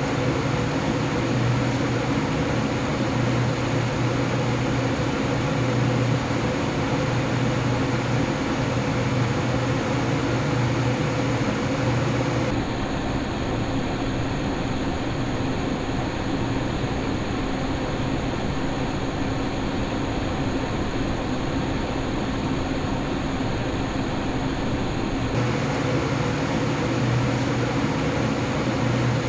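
XPG Vento Gentle Typhoon 120 mm case fans running in a PC case: a steady whir with a low hum and a high whistling howl from air forced through the case's vent slits. About twelve seconds in the high whistle tones drop out, and they return about 25 seconds in, as the recording switches between the case with open slits and with the slits taped over.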